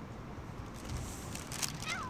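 A stray cat gives one short meow that falls in pitch near the end, just after a few sharp clicks, over a steady low background rumble.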